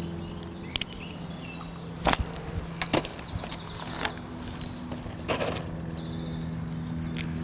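Pellet catapult being fired: a few sharp snaps of the elastic and pouch, the loudest about two seconds in, over birdsong and a steady low hum.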